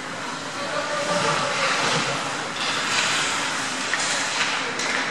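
Ice hockey rink sound: skate blades scraping and carving the ice in a steady hiss that swells for a second or two, with a couple of sharp stick or puck clicks near the end.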